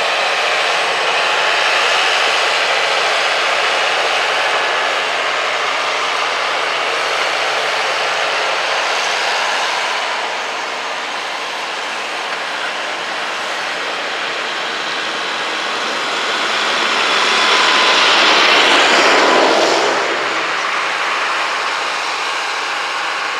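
Valtra tractor engine running under load, pulling a four-furrow reversible plough through clay soil. It is quieter for a few seconds midway, while the plough is lifted for the headland turn, and loudest about three-quarters of the way through as the tractor passes close.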